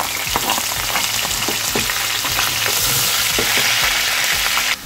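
Sliced red onions sizzling in hot palm oil in a non-stick pan, with small ticks and scrapes of a wooden spatula stirring them. The loud, steady frying hiss drops suddenly just before the end.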